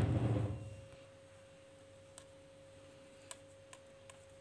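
A few faint, sharp clicks of metal knitting needles tapping together as stitches are worked, over a steady faint hum. A louder noise fades out over the first second.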